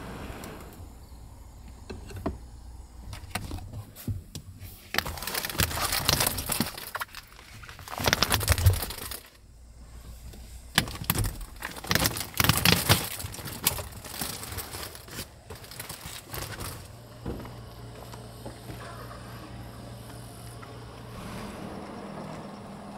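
Handling sounds in a car interior: several loud bursts of rustling and clattering with sharp knocks, then a steady low hum in the last few seconds.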